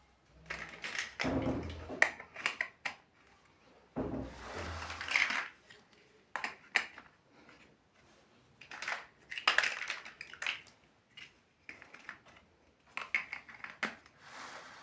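Plastic building bricks clicking and crunching as they are handled and pressed together, in irregular clusters of sharp clicks.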